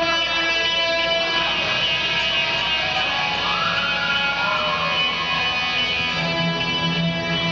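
Electric guitar playing ringing, sustained chords through an amplifier, the opening of a live rock song. A low note comes in strongly about six seconds in.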